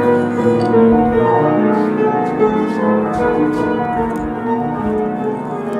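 Piano being played, loud, a run of changing notes over sustained chords.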